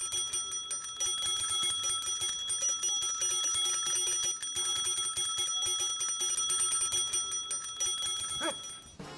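A bell ringing continuously with a rapid, even trill, like an electric or alarm bell. It stops just before the end, with a brief gliding tone.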